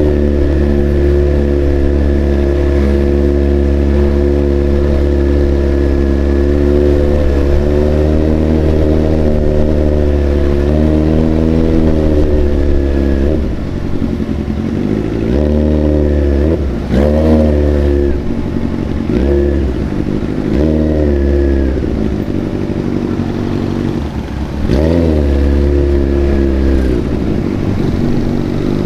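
Big motorcycle engine running steadily, then revved again and again in short blips through the second half.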